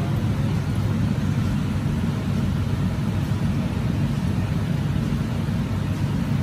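Steady low rumble of an underground metro station platform, even in level throughout, with no train arriving or leaving.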